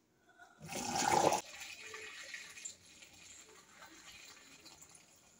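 Liquid mixture poured from a plastic measuring jug through a funnel into a plastic jug: a loud gush about a second in, then a quieter steady trickle.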